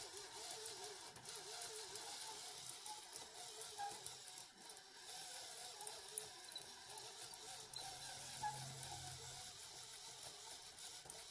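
LEGO Technic chain-driven CVT running on a small electric motor, a faint whir with a wavering pitch and light clicking from its chain and gears as the gear ratio is shifted by hand.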